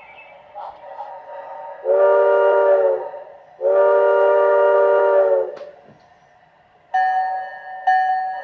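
Model steam locomotive's sound system giving two blasts of a multi-tone steam whistle, the second longer than the first; about a second and a half later its bell starts ringing, about one strike a second.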